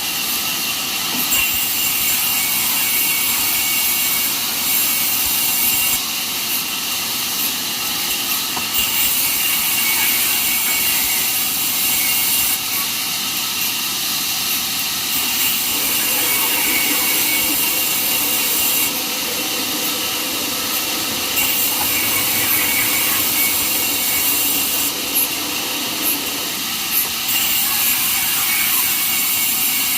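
Sawmill band saw running and cutting through a jackfruit log: a loud, continuous hissing whine. The hiss grows and fades in brightness every few seconds.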